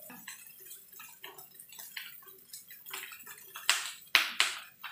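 Fried rice sizzling and crackling in a non-stick frying pan while it is stirred with a metal spatula, with irregular small scrapes and clicks. A couple of louder sharp sounds come about four seconds in.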